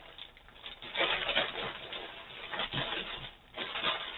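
Plastic packaging crinkling and rustling as a bag of diamond-painting drills is handled and wrapped back up. It is fainter for about the first second, then louder, with a brief lull a little after three seconds in.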